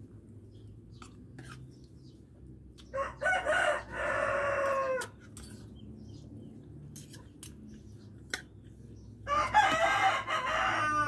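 A rooster crowing twice, each crow about two seconds long, about three seconds in and again near the end. Light clinks of a fork and spoon on a plate come between the crows.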